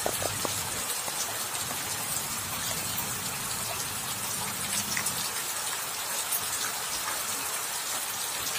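Heavy rain falling onto a flooded road and standing floodwater: a steady, dense hiss of rain with faint scattered drop ticks.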